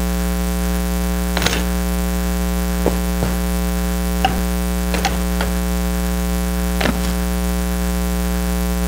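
Steady electrical mains hum with a buzz of overtones running through the recording, with several light knocks and rustles scattered through it as a book and papers are handled at the pulpit.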